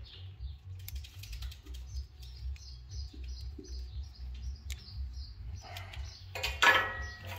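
Birds chirping: a run of short, high, repeated chirps, about two a second, over a steady low hum, with a louder short burst near the end. The birds are ones the speaker takes for starlings or blackbirds getting into a shop exhaust pipe.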